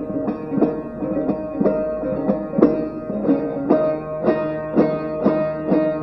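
Bağlama (Turkish long-necked saz) playing an instrumental folk tune, with evenly paced plucked strokes about three a second and the notes ringing on between them.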